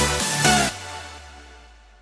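Electronic background music with a regular beat that stops abruptly about two-thirds of a second in, leaving a tail that fades away.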